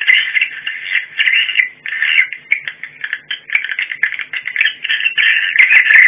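Recorded swiftlet twittering (a "supersonic" lure sound) played through rooftop horn loudspeakers: a fast, continuous chattering trill that sounds thin and cut off at both the low and high ends.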